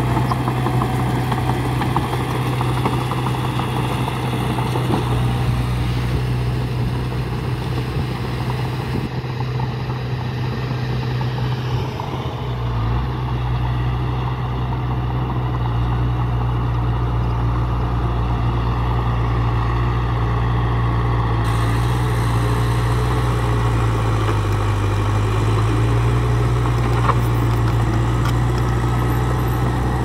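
Small Komatsu crawler bulldozer's diesel engine running steadily as the machine pushes soil with its blade. Near the end the engine note sags briefly under load and recovers.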